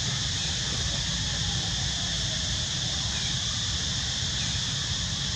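Steady outdoor ambience: an even, high-pitched hiss over a low rumble, with no distinct events.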